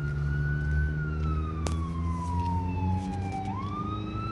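Emergency vehicle siren in a slow wail: the pitch sweeps quickly up, falls slowly over about two and a half seconds, and sweeps up again near the end. Under it runs a steady low engine hum, with one sharp click about halfway through.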